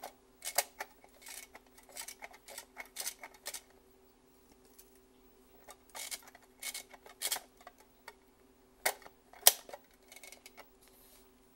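Irregular small plastic clicks and short scratchy rattles from a VHS cassette being handled and its tape wound back up by hand, over a faint steady hum.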